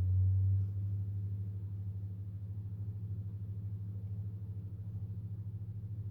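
Low, steady electrical hum with a fast flutter, louder for the first moment and then settling. It comes from the powered-up toy gun's circuit or stalled motor, which is not spinning the barrels.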